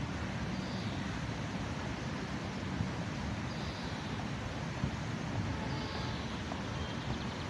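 Steady city ambience: a continuous low rumble of traffic, with faint short high chirps recurring every two to three seconds.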